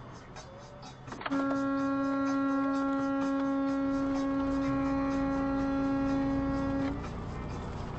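Semi truck's horn held in one long steady blast of about five and a half seconds on a single low pitch, starting abruptly a little over a second in and cutting off near the end; a warning at a pickup that has merged into the truck's lane and struck it.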